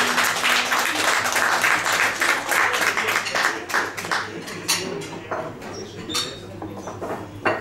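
Audience applauding at the end of a song, dying away about three and a half seconds in, followed by a few scattered knocks and clatters.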